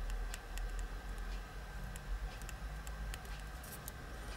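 Faint, scattered light taps and clicks of fingertips on the Aegis T200's touch panel, which does not respond, over a low steady hum.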